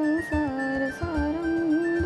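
Indian devotional aarti music: a melody with held, bending notes over a repeating low beat.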